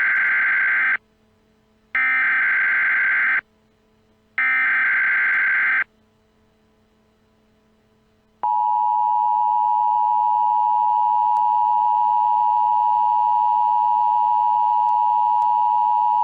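Emergency Alert System tones: three bursts of buzzy SAME header data, each about a second and a half long with short silent gaps, then, about eight seconds in, the steady two-tone EAS attention signal (853 and 960 Hz) that signals an alert message is about to be read.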